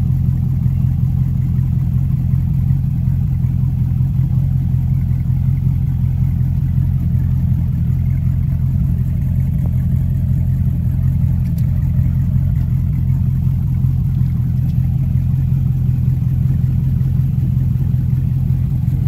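Boat engine running steadily, a low even drone that holds unchanged throughout.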